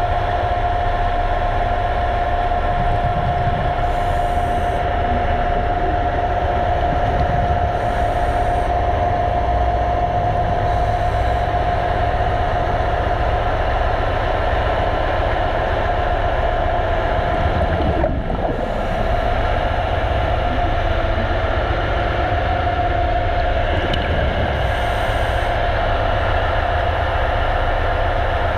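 Steady mechanical hum heard underwater: a constant whine over a dense low rumble, briefly dipping once near the middle.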